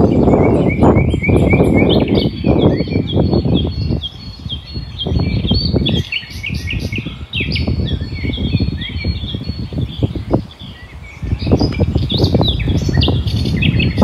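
Songbirds singing in quick runs of short, repeated chirps, over a loud, gusty low rumble of wind buffeting the microphone.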